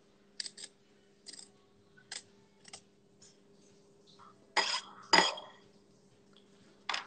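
Pumpkin-carving tool clicking and scraping against a pumpkin in short strokes, then two louder knocks about halfway through and one more click near the end.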